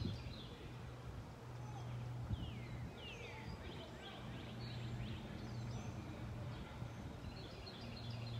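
Birds chirping outdoors, with a run of quick falling chirps about two to three seconds in and high twittering near the start and end, over a low steady hum.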